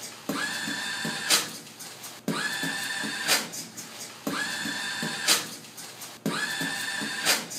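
Automatic paper towel dispenser's motor whining in a steady high tone for about a second, four times at even two-second intervals, with a beatboxed beat around it: short low kick-like thumps and a sharp snare-like hit after each whine.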